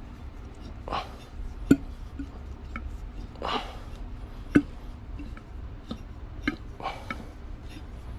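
Removed car A/C component being tipped and handled to drain out its refrigerant oil: a few sharp metallic clinks, two of them louder, and softer scrapes over a low steady hum. No oil comes out, so the part has run dry.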